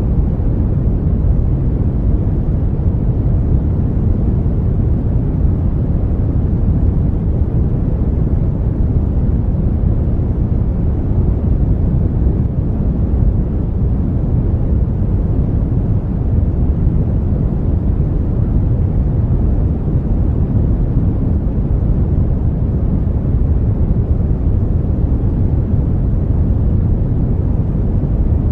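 Brown noise: a steady, deep rushing hiss with most of its energy in the bass and little in the highs, unchanging throughout.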